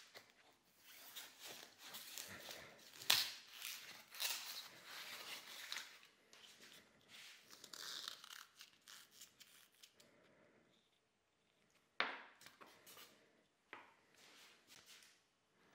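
White expanded polystyrene foam crunching and tearing as it is broken and worked by hand, with irregular scraping rustles and sharper cracks about three seconds in and again about twelve seconds in.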